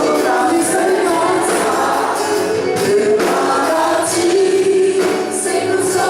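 Live gospel worship music: a group of voices singing together over a band, with a regular cymbal or tambourine beat.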